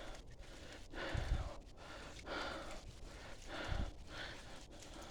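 A person breathing hard, with three heavy breaths about a second and a half apart.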